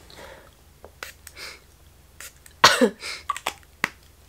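Nasal spray squirted into a blocked nose: a few short hisses with sniffing and small clicks of the pump bottle, then a loud cough about two and a half seconds in as the spray runs back onto the palate.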